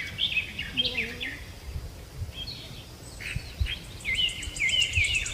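Small birds chirping over and over in short, quick rising and falling calls, with a low background rumble.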